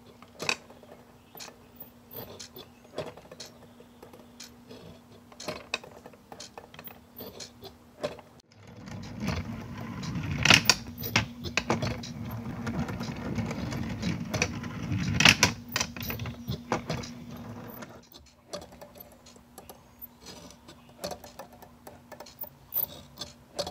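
Gear-motor-driven automaton running: a steady motor hum under irregular clicking and clacking of its moving linkages and parts. The mechanism sound grows louder and rumbling for several seconds in the middle.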